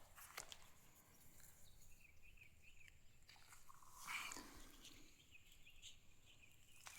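Near silence: faint outdoor background with a few soft rustles and clicks, and faint high chirps in the middle.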